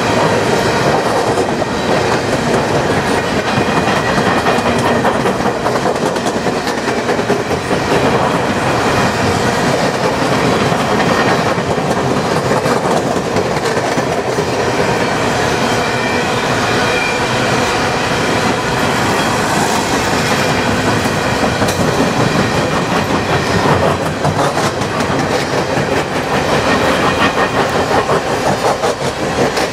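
Freight cars of a long coal train rolling past, with a steady rumble and a constant run of clicks from the steel wheels passing over the rails.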